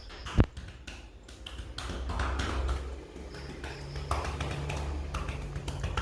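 Hands tapping and patting on a person's body in a percussion chest massage: a string of light, irregular taps, with one sharp slap about half a second in.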